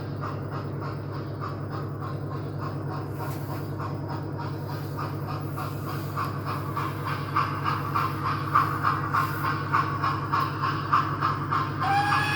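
OO gauge model steam locomotive hauling four coaches around the layout: a steady motor hum under a fast, regular ticking from the running train, getting louder over the second half as it comes closer. A short high pitched note sounds near the end.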